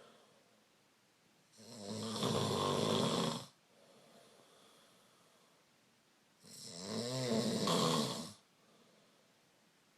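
A person snoring loudly: two long snores, each about two seconds, some five seconds apart, with quiet breathing between.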